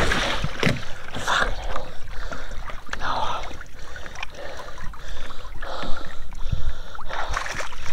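Water splashing and trickling at a river's edge, with irregular rustling and a few dull knocks.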